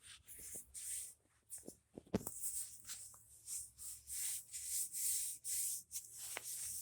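Hand rubbing strokes on a steel anvil face, a swish about two or three times a second, as motor oil is sanded into the surface with a fine-grit sandpaper disc to seal it against rust. A few light knocks come in between the strokes.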